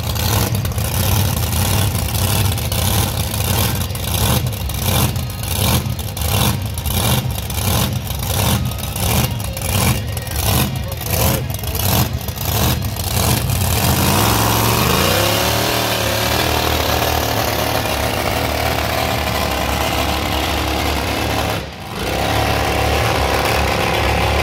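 Pulling truck's engine running loud with a lumpy beat, about two pulses a second, while it waits at the line. About halfway through it goes to full throttle with a rising sweep and runs steadily under load as the truck pulls the sled, dipping briefly once near the end.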